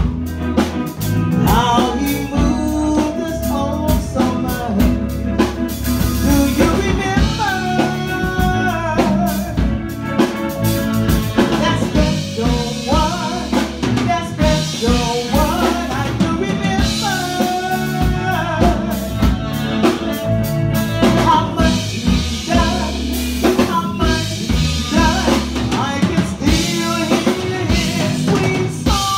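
Live band playing a groove: drum kit and bass underneath, with a lead line that slides and bends in pitch and some singing.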